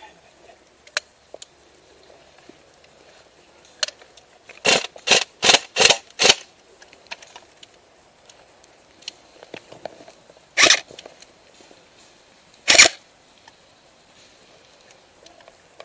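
Airsoft gun firing single shots: five in quick succession, about two and a half a second, then two more a couple of seconds apart near the end, each a short sharp snap.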